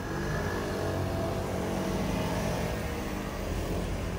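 A motor vehicle passing close by on a city street, its engine note shifting slightly in pitch over a steady low rumble of traffic.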